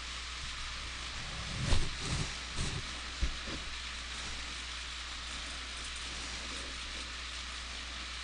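Steady hiss and low electrical hum of the recording microphone, with a few short low thumps about two to three seconds in.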